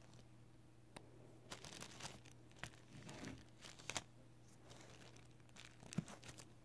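Faint handling noises of nail-stamping tools on a metal stamping plate: a series of short scrapes and light clicks, with one sharper tap about six seconds in.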